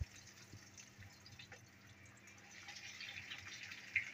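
Breadcrumb-coated rolls deep-frying in hot oil: faint, steady sizzling and crackling of bubbling oil, with a soft knock right at the start.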